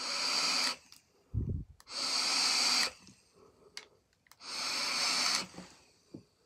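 Three long breaths of about a second each, blowing out thick vape clouds, with a short dull bump about a second and a half in.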